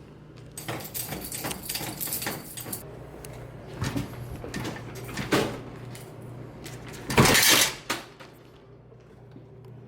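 Clattering and knocks from a soda vending machine being opened and worked on, with one loud clunk a little after seven seconds in.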